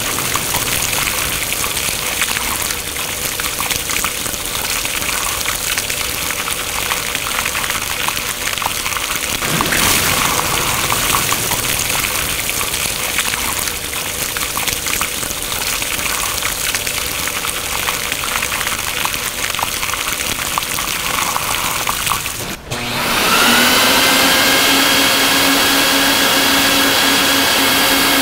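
Water hissing and splashing as it sprays from pipe nozzles across a rug laid on a wash floor. About 23 seconds in, the hiss breaks off and a motor starts, its whine rising briefly and then holding steady.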